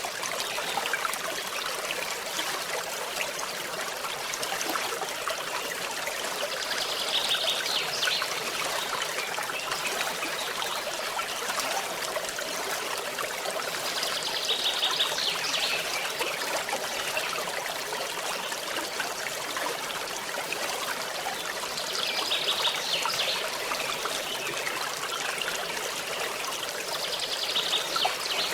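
Small forest stream trickling and babbling steadily. A short, high, rapidly pulsing trill comes in four times, about every seven or eight seconds.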